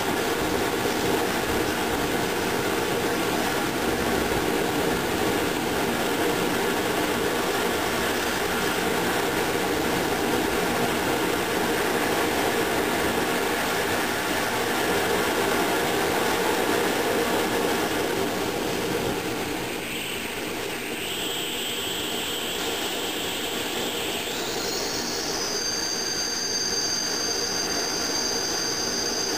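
Hago siphon oil burner firing, a steady roar from its flame. About two-thirds of the way in the roar eases a little as the burner is turned down, and a high thin whistle sets in, stepping up in pitch a few seconds later and holding steady.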